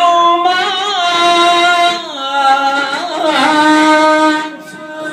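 A solo man's voice chanting a devotional poem in long, held notes that waver in pitch, with a short break about two seconds in and another near the end.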